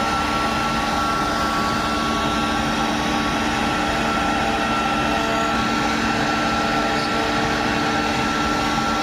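CNC machine running steadily: a constant hum with a few steady tones over an even rushing noise, unchanging throughout.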